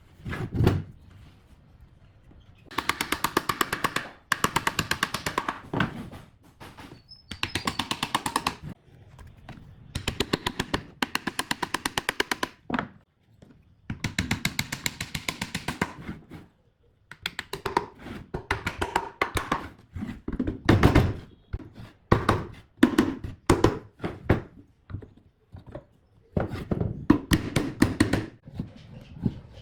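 A power tool running in repeated short bursts of one to two seconds, each a fast, even rattle of strokes, with single knocks between bursts.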